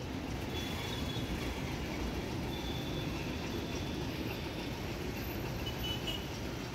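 Steady low rumble of background vehicle noise, with no distinct knocks or clicks.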